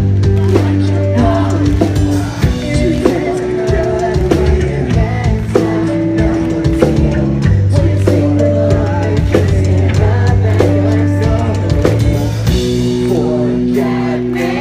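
Pop-punk band playing live: loud drum kit, bass and electric guitars with sung vocals.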